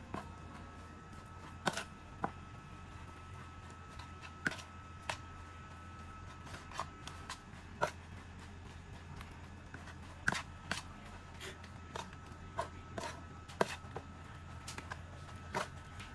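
A hand kneading and mixing minced pork with glass noodles and wood ear mushrooms in a plastic bowl: irregular sharp clicks and taps, about one a second, over a low steady hum.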